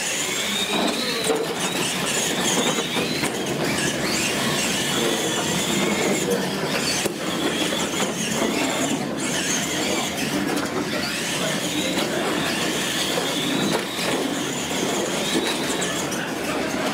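R/C monster trucks racing on a concrete floor: a high motor and gear whine that rises and falls again and again as they are throttled.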